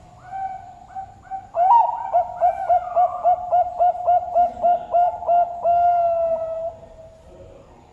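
Zebra dove (perkutut) singing its cooing song. It opens with a quieter note, then a quick run of about a dozen short coos at roughly three a second, and ends on a long held coo that fades away.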